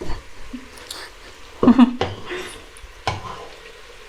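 Cookware sounds while seasoned potatoes are mixed: a few sharp knocks of a utensil against a dish. A short vocal sound comes about halfway through.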